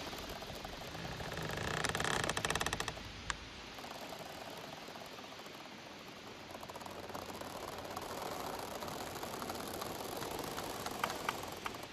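Wind-blown bamboo stalks rubbing together, creaking and squeaking over a steady rustle. A louder drawn-out creak comes about two seconds in, followed by a single sharp knock, and a few short clicks come near the end.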